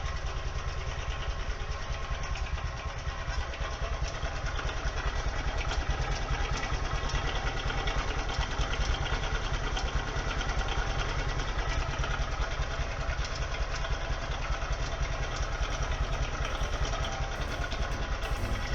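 Honda MSX125 motorcycle's single-cylinder four-stroke engine idling steadily.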